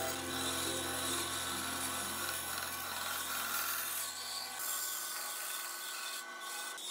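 Band saw cutting along a curve through a thick board, the blade rasping through the wood over the steady hum of its motor. The low hum fades out about six seconds in.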